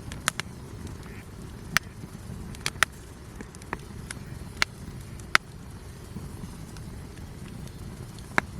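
Wood campfire crackling: sharp, irregular pops, about nine of them, with a longer pause past the middle, over a steady low rumble of the burning fire.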